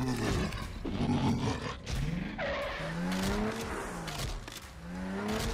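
Dubbed fight sound effects for a toy animation: several sharp hits, then a growling, revving sound whose pitch swoops up and down several times in the second half.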